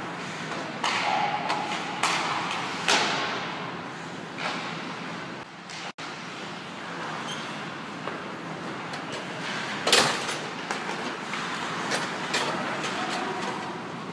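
Ice hockey play in an indoor rink: skates scraping across the ice under a steady hall echo, with sharp knocks of pucks and sticks against the boards and glass. The loudest knock comes about ten seconds in.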